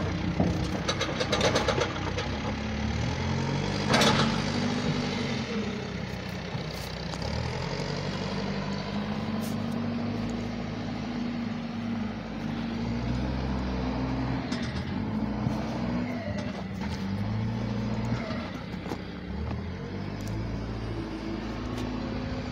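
Diesel engine of a backhoe loader working, its pitch rising and falling again and again as the hydraulics are loaded, with a clatter about a second in and a heavy thud about four seconds in as soil is dumped into the truck's bed.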